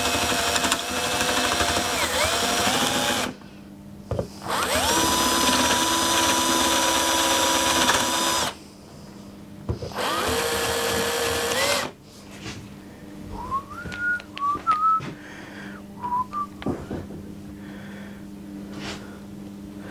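Small cordless drill spinning a step drill bit into a wooden plane handle, in three runs of a few seconds each with a steady motor whine and short stops between them. After that, quieter scraping, clicks and faint squeaks as a hand-cranked drill bores into the handle.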